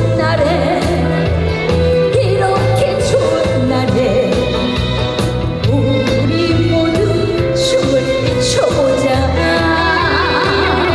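Live trot song: a woman singing a melody over band accompaniment with a steady bass line.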